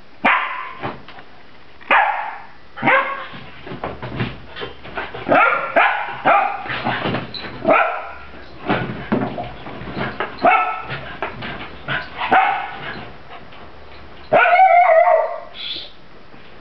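German Pinscher and German Shepherd puppies play-fighting, giving many short barks and yips in quick succession. One longer, louder cry comes about fourteen seconds in.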